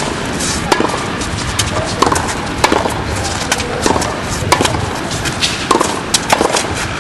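Tennis rally: rackets striking the ball and the ball bouncing on a hard court, a sharp pop roughly every half second to a second.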